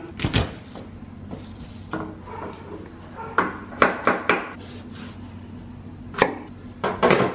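Chef's knife chopping garlic on a wooden cutting board: a handful of separate knocks, four close together about three and a half seconds in and two more near the end. A single sharp clack near the start, from a hand-held can opener on a tomato can.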